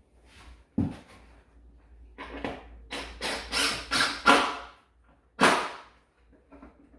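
Plywood table panels being handled and fitted together: a thump about a second in, then a string of short scraping and knocking sounds, the loudest near the middle and again a little after five seconds.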